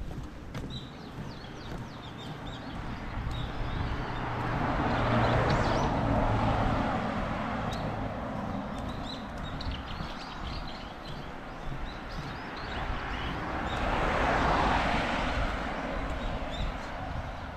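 Two vehicles pass on the road one after the other, each a swell of tyre and engine noise that rises and fades, the first about five seconds in and the second near the end. Small birds chirp throughout.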